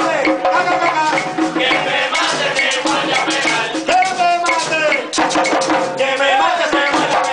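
Live Puerto Rican plena: several panderos, hand-played frame drums, beat a fast interlocking rhythm with a scraped or shaken gourd percussion line, while men sing together over it.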